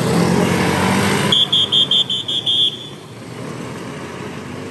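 Road traffic passing close by, then a quick run of about seven high electronic beeps, after which the traffic noise drops away.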